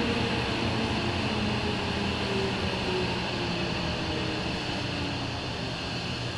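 Running noise inside a Tokyo Metro 07 series subway car as it slows for a station: a steady rumble of wheels and motors with faint tones from the car's Mitsubishi PMSM VVVF inverter drive shifting in pitch. The overall level slowly eases off.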